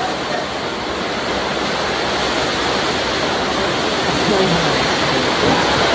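Heavy rain, a steady hiss loud enough to drown out speech.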